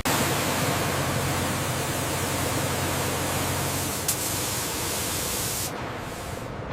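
Steady hissing, rushing noise with a low hum beneath it.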